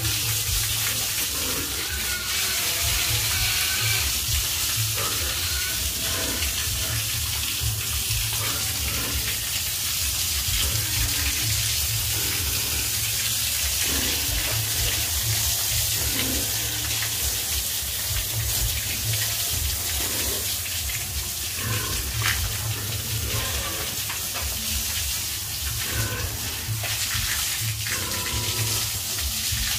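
Hose jet of water spraying and splashing onto a wet concrete pen floor: a steady hiss, with a steady low rumble underneath.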